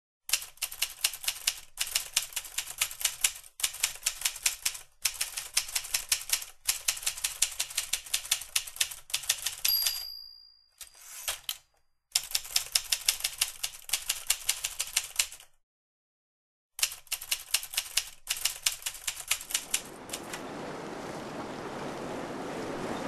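Manual typewriter typing in rapid bursts of key strikes with short pauses between them. About ten seconds in the carriage-return bell dings, and typing resumes after a short gap. From about twenty seconds in, a steady rushing noise takes over.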